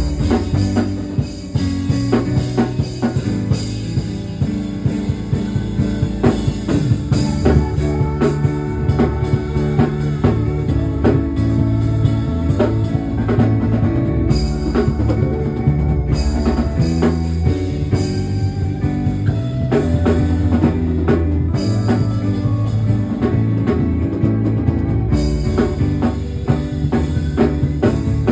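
Instrumental band music with no singing: drum kit, bass and guitar playing with a steady beat.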